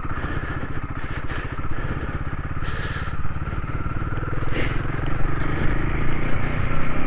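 Royal Enfield Himalayan 450's single-cylinder engine running steadily at low speed on a rough track, picking up a little about five seconds in. Two brief rushes of noise come about three and four and a half seconds in.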